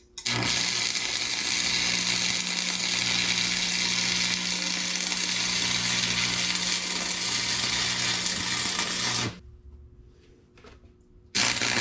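Power grinder running steadily and grinding a steel wheel-bearing inner race. It stops abruptly after about nine seconds and starts again near the end.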